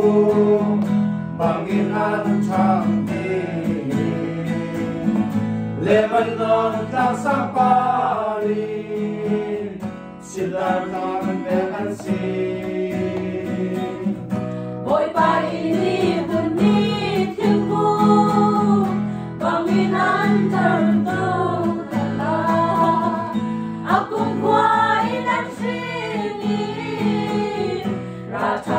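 A small choir singing a song together, accompanied by a strummed acoustic guitar.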